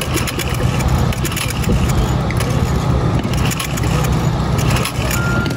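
The single-cylinder Tecumseh HS40 engine of a 1969 Powell Challenger mini bike, running steadily.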